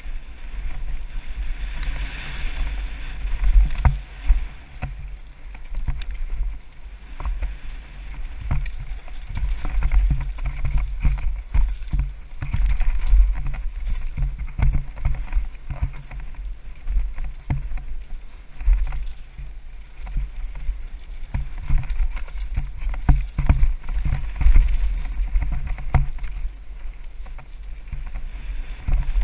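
Downhill mountain bike ridden fast over a rough dirt trail, heard from a helmet-mounted camera: a constant low wind rumble on the microphone, with the tyres on dirt and many sharp knocks and rattles as the bike goes over bumps.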